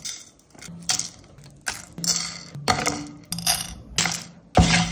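Handfuls of whole spices (seeds, cardamom pods, cloves and cinnamon pieces) dropped into a dry non-stick pan, clattering and rattling on the metal in a series of separate pours, the loudest near the end.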